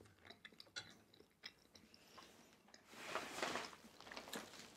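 Faint chewing and small wet mouth clicks, then about three seconds in a soft rustle as a paper mailer envelope is picked up.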